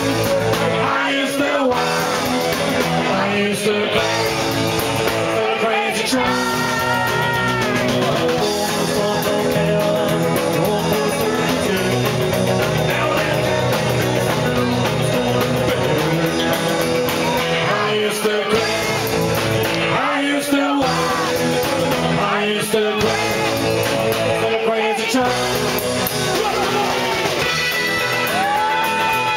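Live rock and roll band playing: a male singer belting into the microphone over electric guitars and a steady beat.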